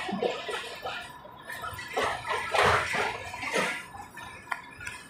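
Passenger coaches rolling past at walking pace, their wheels running on the rails with uneven surges of clatter and thin, steady metallic squealing.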